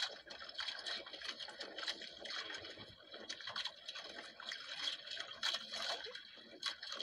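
Sea water lapping and splashing against the hull of a small outrigger boat, an uneven, flickering wash of water sound.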